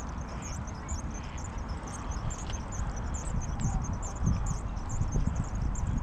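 Small birds chirping rapidly and continuously in high, short calls, over a low rumble.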